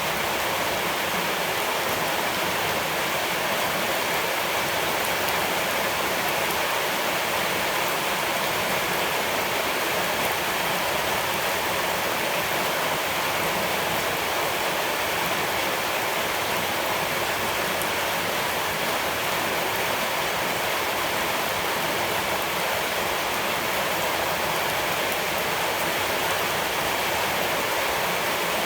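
Steady rushing water, a continuous even wash of noise with no change in level.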